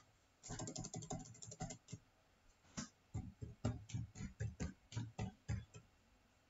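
Computer keyboard typing. A quick run of keystrokes comes in the first couple of seconds as a word is deleted. Then about a dozen separate keystrokes follow over the next three seconds as an IP address is typed.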